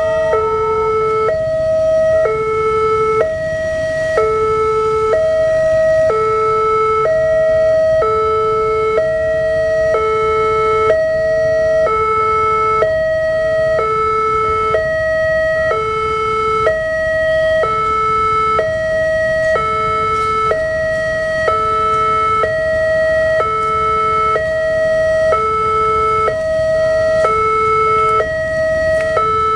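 Indonesian railway level-crossing warning siren sounding a two-tone alarm that alternates between a low and a high pitch, each tone lasting about a second. It signals that a train is approaching and the crossing is closed.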